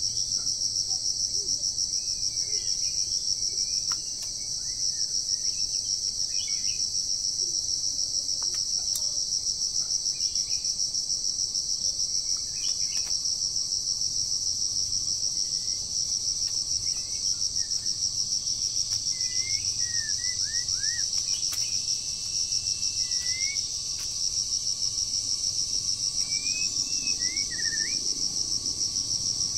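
A loud, steady, high-pitched insect chorus shrilling in a fast pulse, with scattered short bird chirps and whistles, more frequent in the second half.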